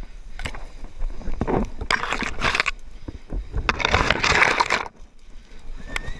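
Brush and branches rustling, scraping and snapping as a person pushes through dense scrub by hand, close to a body-worn camera. It comes in two loud crackling spells, about two and four seconds in.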